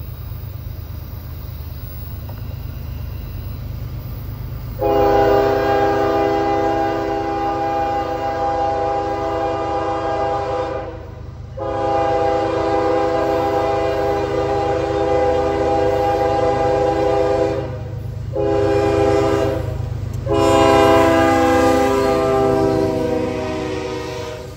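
Norfolk Southern freight locomotive's multi-chime air horn blowing long, long, short, long, the standard grade-crossing warning, over the locomotive's steady low diesel rumble.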